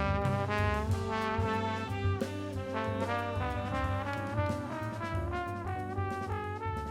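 Saxophone playing a melody of short, connected notes over an accompaniment with a rhythmic bass line.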